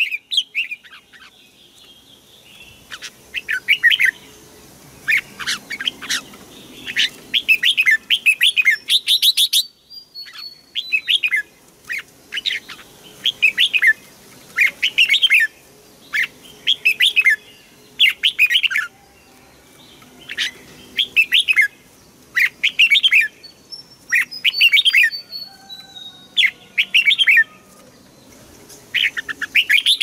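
Red-whiskered bulbul singing: short chirping phrases repeated about once a second, with a few higher whistled notes that slide downward.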